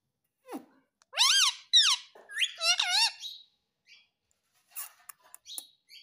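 Indian ringneck parrot giving a quick run of high, squeaky calls that bend up and down in pitch, followed by a few sharp clicks close to the microphone.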